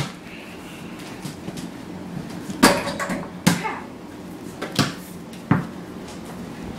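A small rubber basketball knocking against hard surfaces during indoor play: five sharp thumps, the loudest right at the start, then four more spread over the next few seconds.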